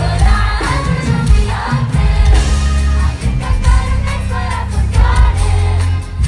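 Live pop music over a concert PA: singing over a heavy, steady bass line.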